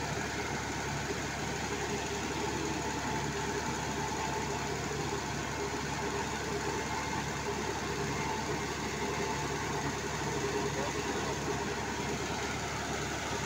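Small stationary engine of a sand-piling boring rig, running steadily at an even pace.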